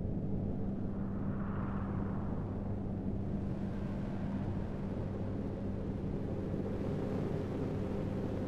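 Steady low rumbling drone with a constant hum underneath, unchanging in level; a faint brighter swell rises and fades about a second in.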